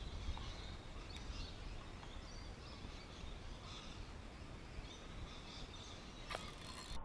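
Outdoor ambience: birds chirping intermittently over a steady low rumble, with a faint knock near the end.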